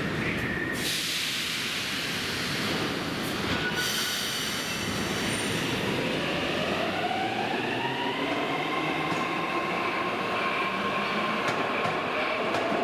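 Metro train running between stations: a steady rumble of wheels and running gear, with the traction motors' whine rising in pitch from about halfway through.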